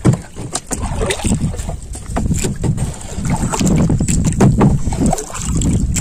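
Wooden outrigger canoe being paddled: water swishing and sloshing around the wooden paddle and hull, with scattered sharp knocks of the paddle against the wooden gunwale and wind rumbling on the microphone.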